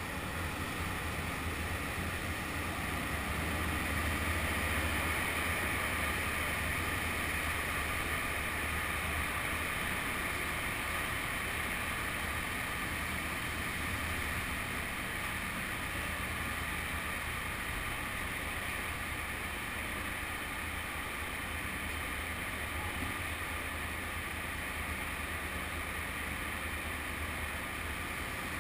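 Motorcycle engine running at low speed as the bike rolls up a steel ramp and onto a ferry's car deck: a steady low rumble under an even hiss, briefly a little louder a few seconds in.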